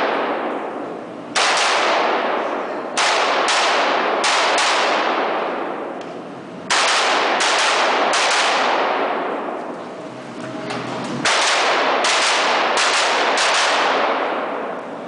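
Rifle shots fired in quick strings of two to four with short pauses between, about a dozen in all. Each shot rings out in a long echo of an indoor range.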